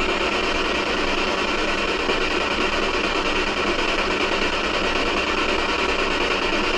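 Steady hiss of radio static from a handheld spirit box, a ghost-hunting radio device, held open for a spirit's reply. No clear words come through it.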